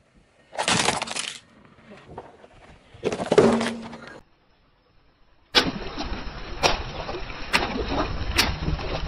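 Car tyre crushing objects one after another. About half a second in, a hollow plastic toy cracks under the wheel. About three seconds in, a juice carton is squashed. Over the last few seconds, water balloons burst with several sharp pops over a steady hiss of splashing water.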